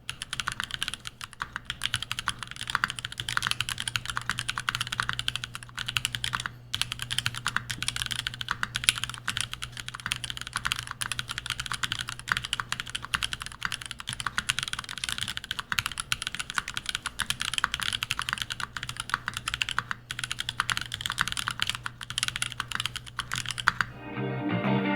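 Fast, continuous typing on a Gok 7v mechanical keyboard with an aluminum plate, lubed and filmed Gazzew Boba U4T tactile switches and PBT keycaps: a dense run of clacky keystrokes that stops about a second before the end.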